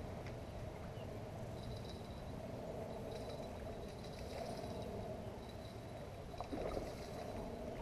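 Wind rumbling on the microphone over steady lakeside noise, with faint water splashing as a hooked carp is brought to the landing net; a brief splash stands out about six and a half seconds in.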